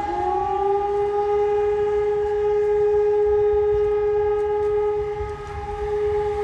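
Fire brigade alarm siren, having just wound up, holding one steady wail: the alarm calling out the volunteer firefighters.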